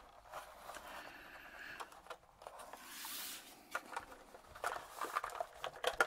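Hands handling a Velocifire TKL02WS mechanical keyboard on a desk: a soft scrape about three seconds in, with scattered light clicks and knocks, more of them near the end.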